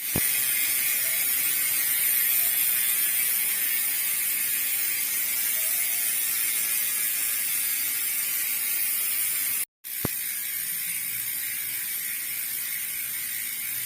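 Bicycle rear freehub buzzing as the wheel spins freely: a fast, continuous ratchet clicking that is steady and high-pitched. It breaks off briefly just before ten seconds in, then carries on slightly quieter.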